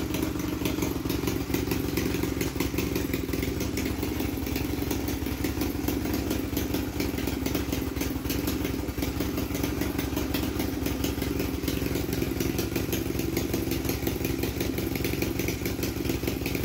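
Honda CB250 Nighthawk's air-cooled parallel-twin engine idling steadily.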